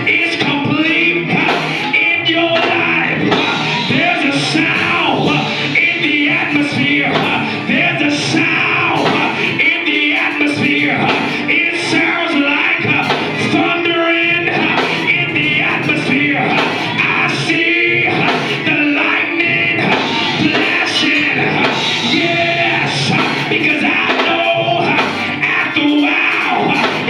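Loud church praise-break music: a band with drums playing a driving beat, with voices singing and shouting over it.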